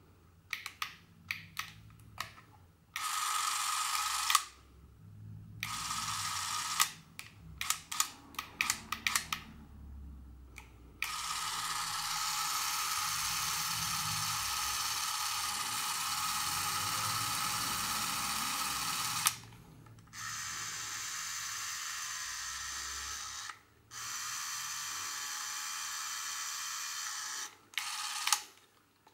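Braun Nizo S30 Super 8 cine camera's electric motor whirring in several steady runs, the longest about eight seconds, with sharp clicks of its switches and controls in between. The later runs are quieter and sound slightly different, as if at another setting.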